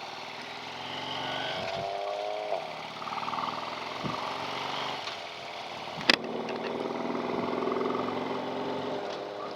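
Harley-Davidson Street Glide's V-twin engine running while riding, its pitch rising for about a second and a half and then dropping, as with a gear change. A single sharp click comes about six seconds in.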